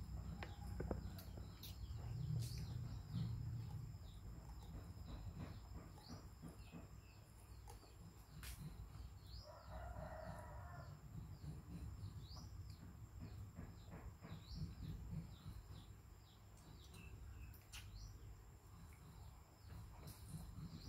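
Small birds chirping, with many short falling chirps, and a rooster crowing once about ten seconds in. Underneath are a low hum and a few faint clicks.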